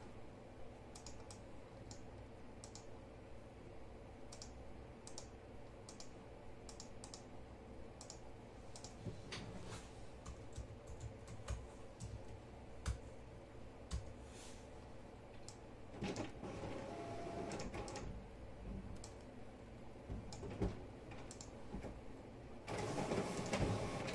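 Faint typing on a computer keyboard: irregular keystrokes, with two louder, noisier stretches in the second half.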